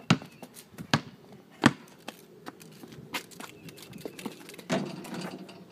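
Basketball bouncing on a concrete driveway: a series of sharp thuds, about one a second at first, then more spread out.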